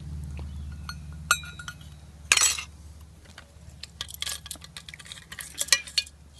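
Aluminium canteen being handled and its cap unscrewed: scattered light metal clinks, one short scrape, then a quick run of small clicks near the end.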